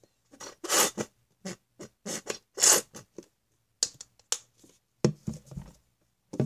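Sticky shampoo-and-salt slime mixture being squished and pulled, giving irregular crackly squelches; the mixture is still too sticky to set into slime.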